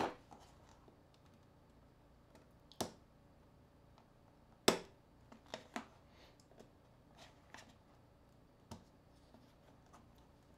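Sharp plastic clicks and taps of a small tool on a mobile phone being taken apart: three louder clicks, right at the start, about 3 s in and about 5 s in, then several fainter ticks spread out after them.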